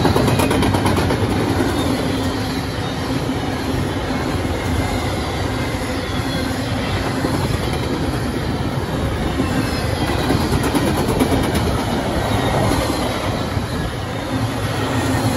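Freight train's mostly empty double-stack intermodal well cars rolling past close by: a steady noise of steel wheels on the rails, with runs of clicking over the rail joints.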